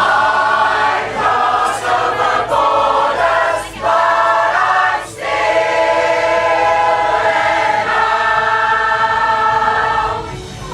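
Choir singing long held chords in several parts, with two short breaks for breath about three and a half and five seconds in. The singing dies away near the end.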